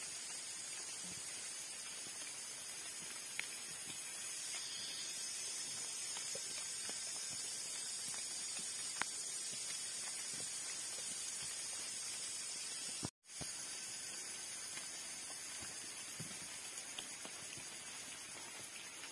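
Steady hiss of heavy rain falling, with a couple of faint ticks. The sound cuts out for a moment about thirteen seconds in.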